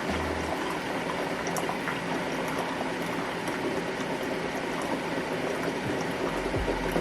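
Liquid boiling in a steady bubbling hiss, with a few faint ticks.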